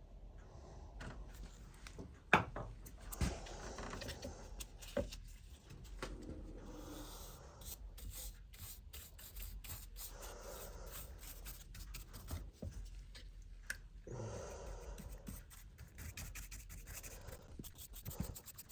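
Irregular rubbing and scraping on wood, broken by scattered light knocks and clicks, with one sharp knock a couple of seconds in.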